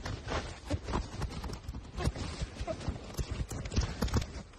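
A quick, irregular run of knocks and clatter, several a second.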